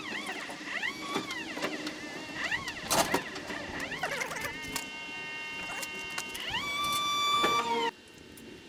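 Whine of the Elise 900 all-electric skid steer's motor and hydraulics, rising and falling in pitch as the controls are worked, with a few clicks. Near the end it holds steady, steps up to a higher pitch, then cuts off suddenly.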